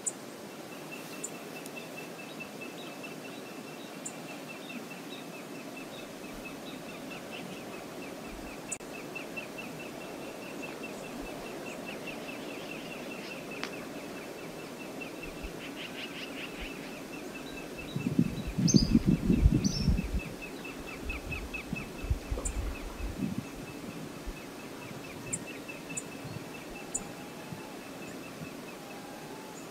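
Outdoor riverside ambience: a steady hiss with a fast, high ticking trill running throughout and a few sharp high chips. About eighteen seconds in, a loud low rumbling burst lasts a couple of seconds, followed by weaker ones.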